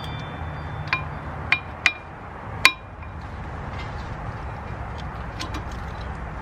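Old front brake pads being worked out of a 2004 Honda Pilot's caliper bracket: four sharp metallic clinks, each with a brief ring, in the first three seconds, then a few light ticks.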